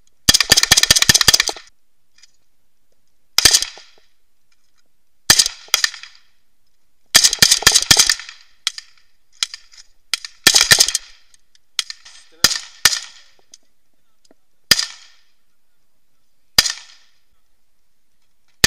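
Submachine gun and AK-pattern rifle fire: several short full-auto bursts, the first about a second and a half long, then well-spaced single shots about two seconds apart near the end.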